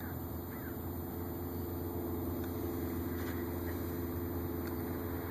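RC model airplane's propeller and motor droning steadily, a little louder about two seconds in, with a few faint bird chirps early on.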